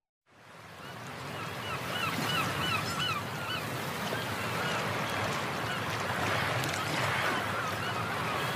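Birds calling over a steady wash of surf, fading in: strings of short calls, several a second, each rising then falling in pitch, about two seconds in and again near the end.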